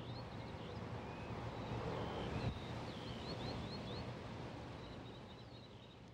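Faint outdoor ambience: small birds twittering in short, high chirps over a steady low hum and background rush. It swells gently and fades out near the end.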